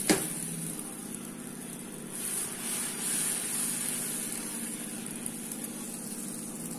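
Dosa batter hissing on a hot tawa as a ladle spreads it outward in circles, over a steady low hum. A sharp knock comes at the very start, and the hiss grows a little louder about two seconds in.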